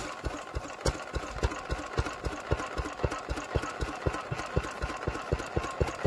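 Small vintage single-cylinder stationary engine, just started by spinning its flywheel, running steadily with a regular beat of about five firing thumps a second.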